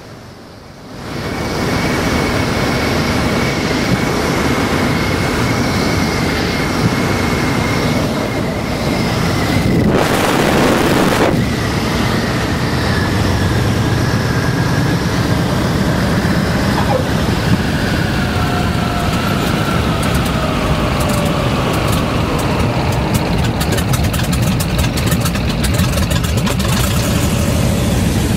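Waco YMF biplane's Jacobs radial engine and propeller running with heavy wind rush through a landing. A short burst of rushing noise comes about ten seconds in. Through the second half a whine slowly falls in pitch as the plane slows on the runway, with a rough low rumble under it.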